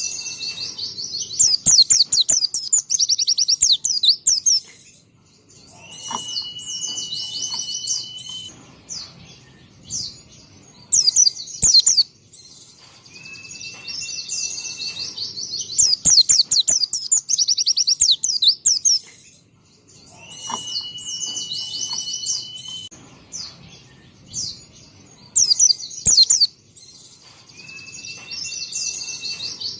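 White-eye (pleci) singing: bouts of rapid, high twittering trills alternate with a thin whistle held steady for a second or two, the pattern coming round again every few seconds.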